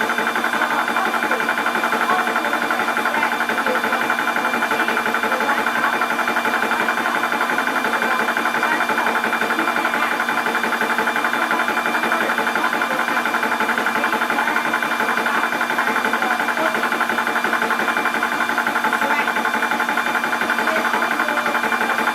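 Portable 12 V high-pressure PCP air compressor running steadily with a fast, even pumping rhythm and a constant hum.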